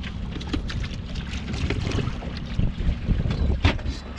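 Wind rumbling on the microphone, with scattered small clicks and knocks as a landing net and a caught trout are handled in a small aluminum boat. The sharpest knock comes near the end.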